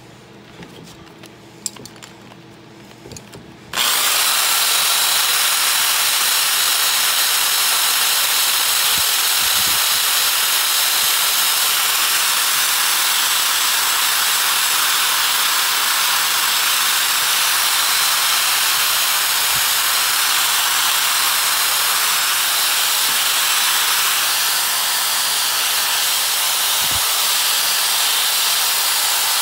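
Electric drill spinning a sanding disc against the steel face of an old double-bit axe head, sanding off rust: a loud, steady whir and hiss. It starts suddenly about four seconds in, after a few light handling clicks.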